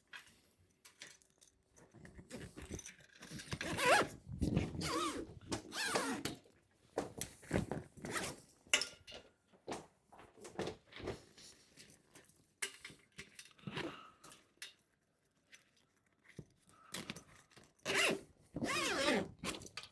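A zip being pulled along the bed's main fabric, closing it onto the waterproof mattress cover, in a series of short pulls with pauses between, the loudest about four seconds in and again near the end.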